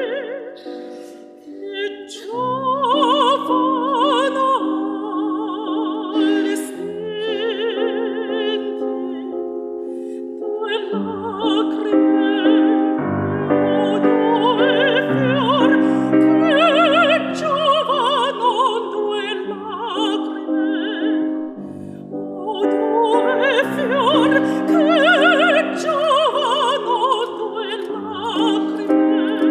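Operatic female voice singing a Chinese art song with wide vibrato, accompanied by piano. The voice breaks off for about a second around a third of the way in while the piano continues.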